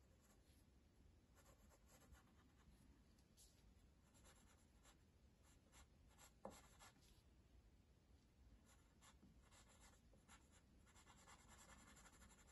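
Faint pencil strokes scratching on drawing paper: short strokes in clusters with small pauses, and a longer run of strokes near the end. A single small tap about six and a half seconds in.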